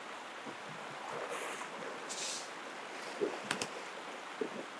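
Quiet river water with a few short splashes as a big hooked brown trout thrashes at the surface close by, and a couple of brief sharp clicks about three and a half seconds in.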